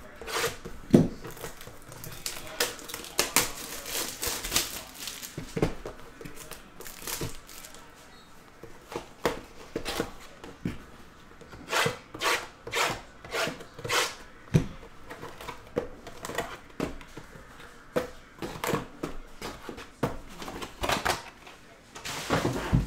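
A shrink-wrapped trading-card box being opened by hand: plastic wrap crinkling and tearing, a utility knife slitting the wrap, and cardboard mini boxes handled and set down, in a run of short rustles, scrapes and taps.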